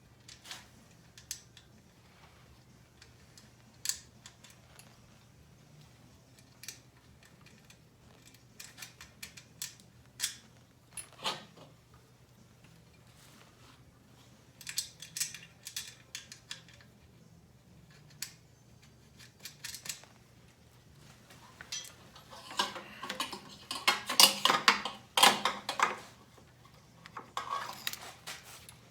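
Hand tools and small metal parts clicking and clinking as they are handled, in scattered single knocks with a busier, louder run of clinks about three quarters of the way through. A faint steady hum lies underneath.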